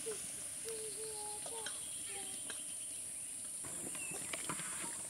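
Outdoor village ambience: a steady high insect drone with repeated short bird calls that bend in pitch. A little over three seconds in, the sound changes to scattered small clicks and crackles.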